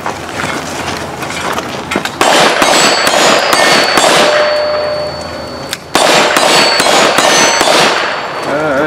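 A string of gunshots at a cowboy action shooting stage, with steel targets clanging and ringing as the hits land. The two loudest shots, about two seconds in and near six seconds, echo on for a couple of seconds.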